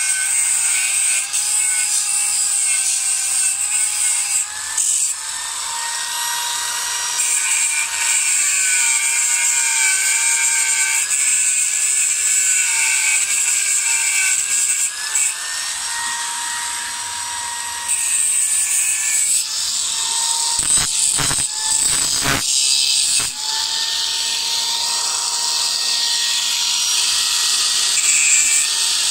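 Electric angle grinder running under load, grinding into the steel frame of a welded-wire cage: a steady high whine with a hiss of metal being cut. Its pitch sags and recovers as the disc bears on the metal, and a few sharp knocks come about three quarters of the way through.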